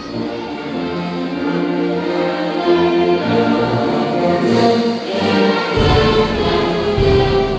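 Choral and orchestral music: a choir singing sustained notes over an orchestra with brass. The deep bass is missing at first and comes back in strongly near the end.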